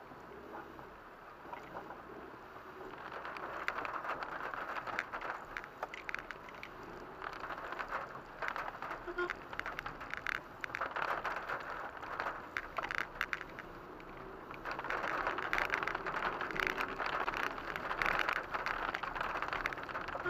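Car driving in rain, heard from inside: a steady hiss of tyres on the wet road with many small patters of raindrops on the windshield, getting louder over the last few seconds.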